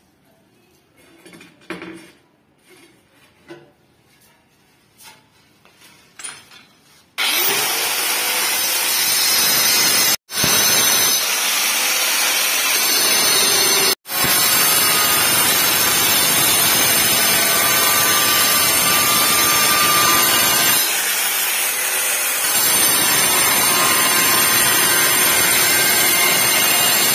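A few light handling knocks, then about seven seconds in an electric drill starts and cuts tile with a loud, steady grinding noise that runs on, dropping out for an instant twice.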